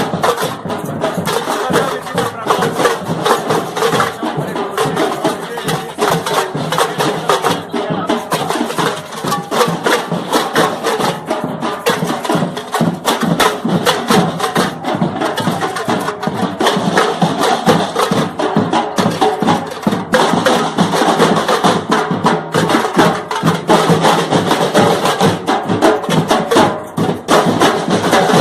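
A percussion group of drums and other percussion playing a fast, continuous rhythm with densely packed strokes and no pause.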